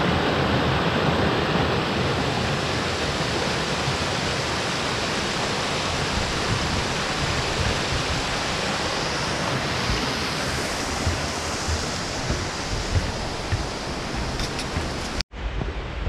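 Mountain stream rushing over rocks and small cascades, a steady, dense hiss of water that cuts off suddenly near the end.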